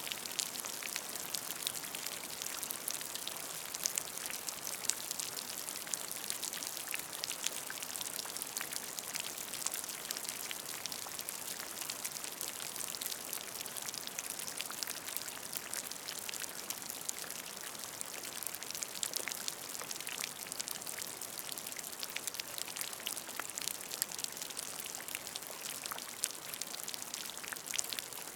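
Steady rain falling onto a puddle, many separate drops plinking and splashing on the water over an even hiss.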